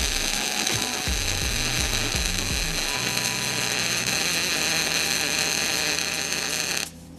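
Wire-feed welder arc crackling and sizzling steadily as a weave bead is laid down, stopping abruptly near the end when the trigger is released.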